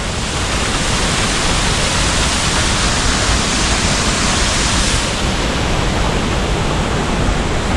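Loud, steady rush of a waterfall, a dense even hiss with a low rumble beneath; the hiss thins slightly about five seconds in.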